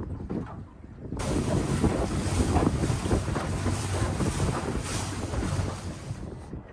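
A small boat running under way: wind buffeting the microphone and water rushing past the hull, with a steady low hum underneath. It starts abruptly about a second in and fades near the end.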